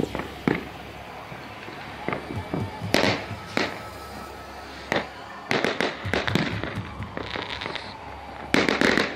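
Fireworks going off: scattered sharp bangs and crackling pops at varying distances, a quick cluster of reports about five and a half seconds in, and a loud burst near the end.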